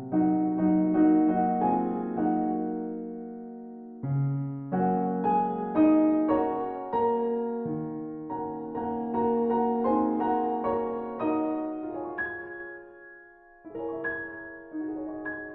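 Background piano music: a gentle melody over chords, its notes struck and left to fade, with a short pause between phrases.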